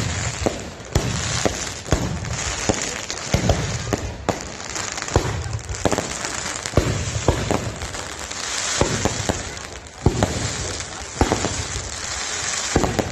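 Fireworks display: shells bursting in an irregular string of sharp bangs, about one every half second, over a continuous crackle that swells in the middle.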